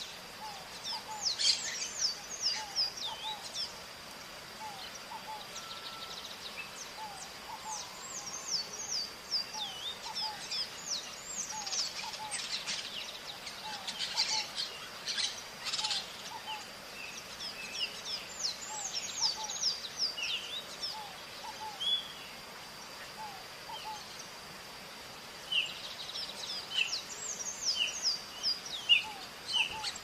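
Maritacas (parakeets) calling in the wild: many short, high chirps in quick runs, with lower short calls repeating throughout, over a faint steady high tone. The calls thin out in the middle and pick up again near the end.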